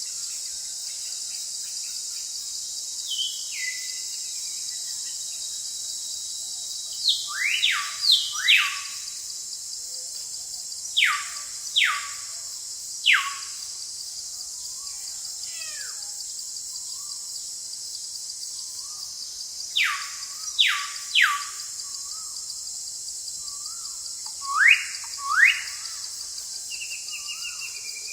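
Forest ambience: a bird gives loud, sharp whistled calls that slur steeply downward, singly and in twos or threes, with a couple of rising calls near the end. Under them runs a steady, high-pitched hum of insects.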